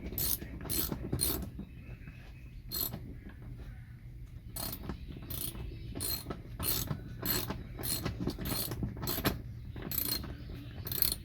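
Socket ratchet wrench clicking in short strokes, with a lull about two seconds in, as a seat belt anchor bolt is run down through the carpet into the car floor.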